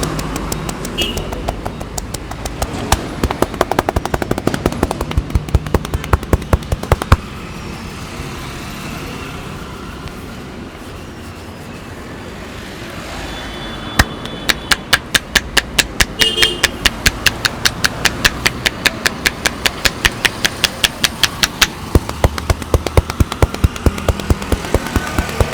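Rapid rhythmic hand strikes of a percussive head massage, about four sharp slaps a second, in two long runs with a pause between.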